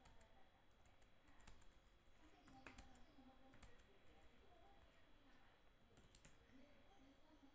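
Faint computer keyboard typing: irregular, scattered key clicks as commands are entered into a router console.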